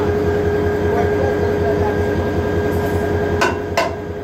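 Diesel locomotive engine idling with a steady drone. Near the end come two sharp metal strikes in quick succession, from a hand hammer knocked against the locomotive's front end at the coupler.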